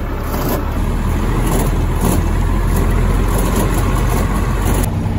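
Farm feeding machinery's engine running steadily with a loud low hum under a rushing mechanical noise. Near the end the sound switches abruptly to a steadier engine hum.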